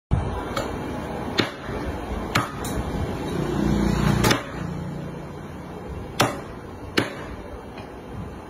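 Meat cleaver chopping roasted meat on a thick round wooden chopping block: about nine sharp, irregular chops, with a low hum swelling briefly near the middle.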